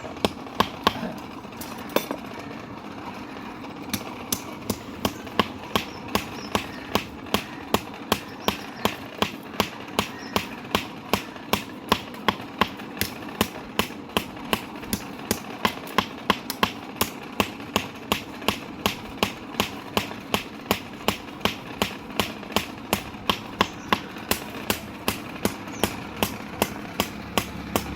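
Blacksmith's hammer striking metal on an anvil in a steady rhythm of about two blows a second, with a short pause near the start, over a steady mechanical hum.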